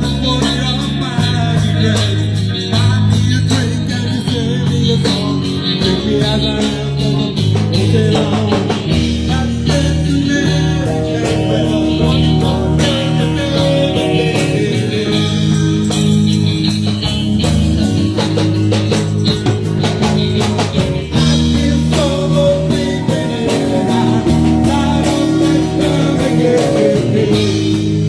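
Live rock band playing, with electric guitar and drum kit and some singing.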